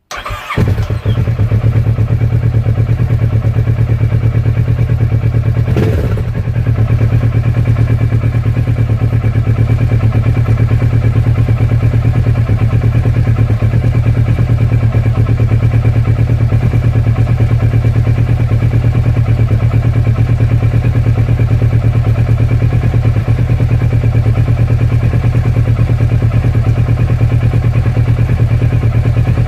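Kawasaki Versys 650 parallel-twin engine starting, catching within the first second after standing for a couple of days, then idling steadily. There is a brief knock about six seconds in.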